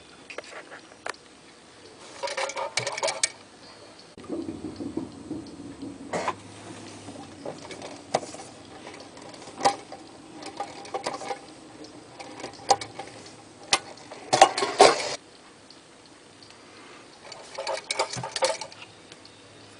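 Vintage Marx tin wind-up toy clicking and clattering in irregular bursts, with a low running hum for a few seconds early on.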